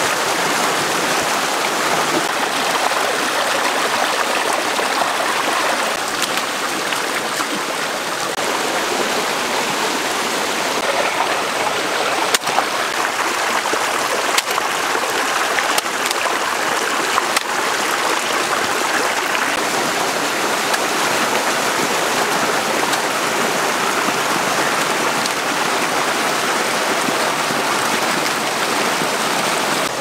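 A shallow rocky stream rushing and splashing over stones in a steady wash of water, with a few faint clicks about halfway through.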